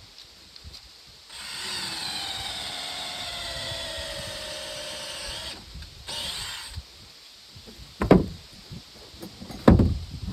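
A power tool working in wood runs for about four seconds, its pitch slowly sagging as if under load, then briefly again. Near the end come two heavy wooden thumps.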